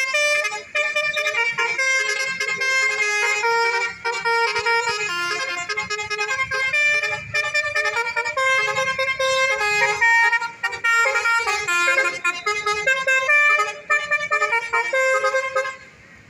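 Telolet musical horns playing a quick melody, several horn notes at a time stepping from pitch to pitch, with a few brief breaks; the horns fall away near the end.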